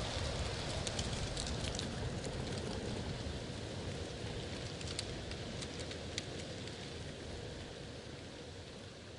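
Wind with rustling leaves over a low rumble, with scattered light crackles, slowly fading out.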